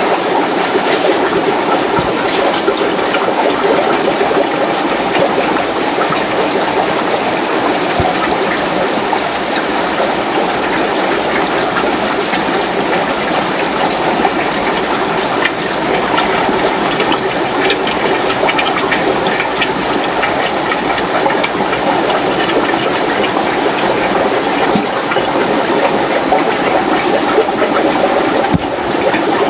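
Steady rushing and bubbling of aquarium filtration: water and air bubbling through many fish tanks, with a constant patter of small splashes.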